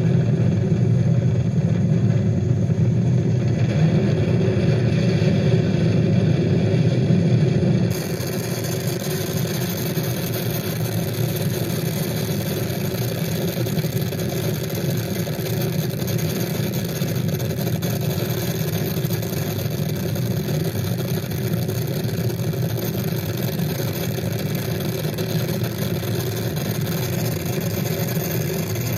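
Steady engine drone with a layer of hiss and some steady hum tones; about eight seconds in it cuts abruptly to a different, thinner engine drone with brighter hiss.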